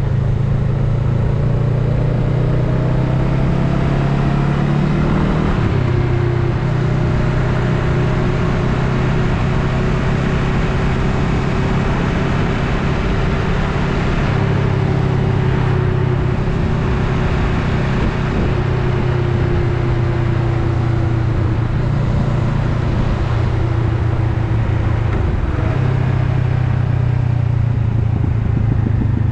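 Honda Rebel 500's parallel-twin engine running steadily while riding, with wind and road noise over it. The engine note steps up or down a few times, as the throttle or gear changes.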